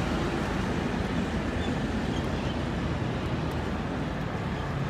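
Steady city street noise: a low, even traffic hum from the roadway.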